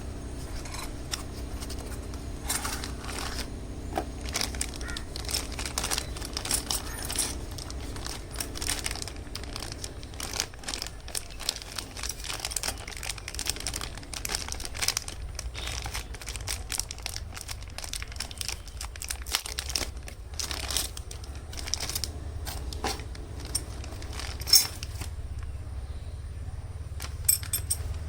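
Plastic and paper packaging crinkling, rustling and tearing as a parcel is unwrapped by hand, with irregular crackles and a few sharper snaps over a low steady hum.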